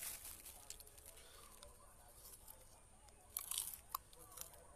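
Quiet eating sounds: faint crinkling of a plastic food bag as food is picked out, then a short crunchy burst about three and a half seconds in as food is bitten off a skewer.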